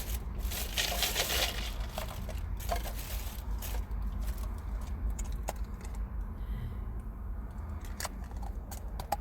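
Close-up eating sounds: chewing a taco, with crinkling and rustling loudest in the first couple of seconds, then scattered small clicks and smacks, over a steady low hum inside a car.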